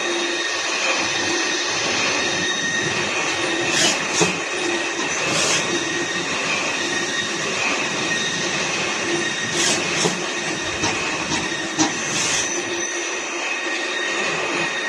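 CNC machine running a cut: a steady whine of several held high tones over a continuous hiss, with a few brief louder hisses about four, five and a half, ten and twelve seconds in.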